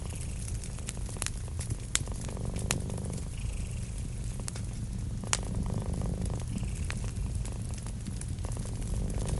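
A cat purring steadily, with a rhythmic rise and fall every few seconds, over a crackling wood fire that gives off scattered sharp pops.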